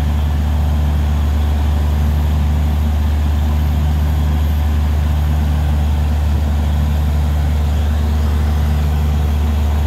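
Borewell drilling rig's engine running steadily under load while boring the well: an even, deep drone with a hiss over it.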